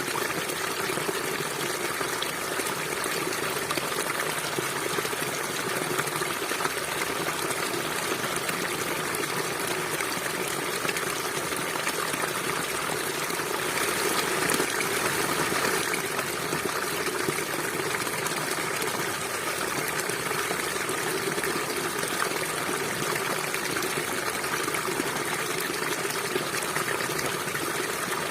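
River water flowing steadily over rocks, a continuous rushing and trickling that swells a little about halfway through.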